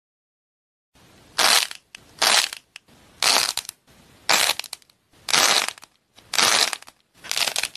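Corn-cob-shaped clay squishy pressed between fingers, giving seven short crunching squishes about a second apart after a second of silence.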